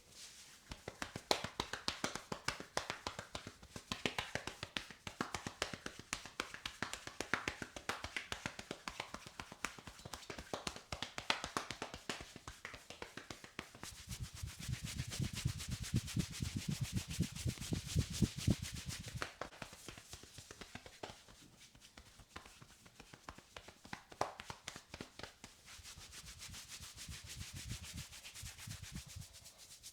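Hands massaging a person's head and hair in an Indian head massage: a fast, continuous stream of pats, taps and rubbing strokes. For several seconds in the middle the strokes turn heavier, with deeper thuds.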